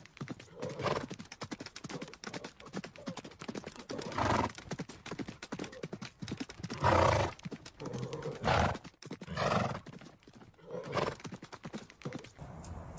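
Horses neighing several times over a steady clatter of hoofbeats. Near the end it gives way to a steady hiss.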